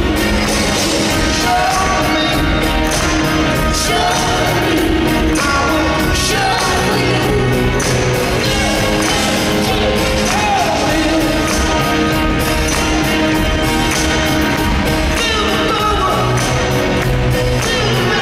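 Live pop-rock band playing at full volume, with a sung lead vocal over a steady drum beat.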